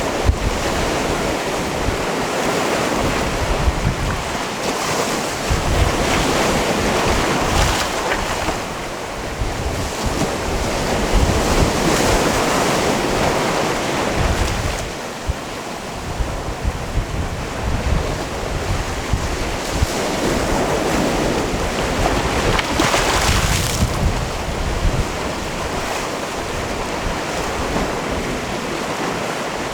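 Sea waves washing onto a rocky cove shore, the wash swelling and easing every few seconds, with wind buffeting the microphone in low rumbling gusts.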